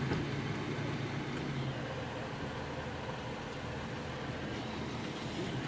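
Vehicle engine and road noise heard from inside the cabin: a steady low hum.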